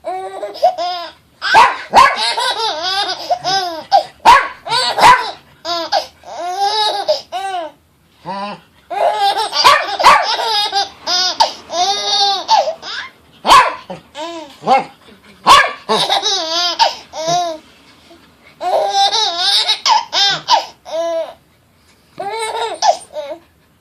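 A baby girl's belly laughs in long repeated bouts, with a dog giving short, sharp barks about half a dozen times, which the laughter sets off.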